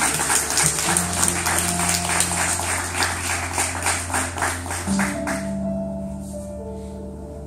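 Music with held low notes and a fast, even beat of sharp percussive hits, about four to five a second. The hits stop about five seconds in, leaving the quieter sustained notes.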